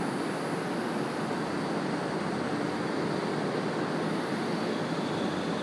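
A crane's engine running steadily while it hoists a load.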